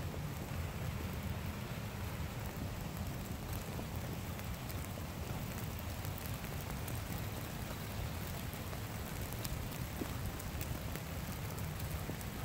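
Steady rain falling in woodland, with scattered drops ticking close by and a low rumble underneath.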